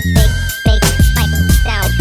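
Hip hop background music with a steady drum beat and heavy bass.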